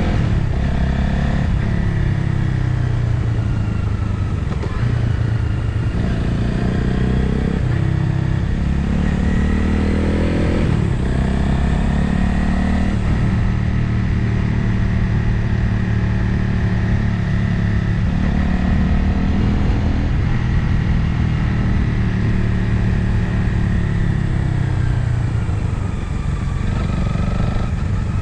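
Motorcycle engine under way, its pitch climbing several times in the first ten seconds as it accelerates through the gears, then holding steady at cruise, with wind noise over it.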